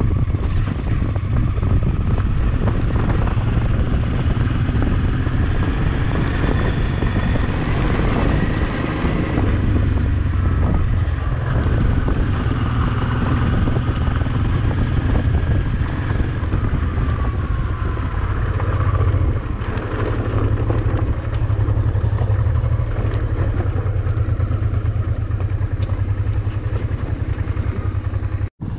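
Honda Transalp XL650V's V-twin engine running steadily under way, its pitch rising and falling, with road and wind noise. The sound cuts out briefly near the end.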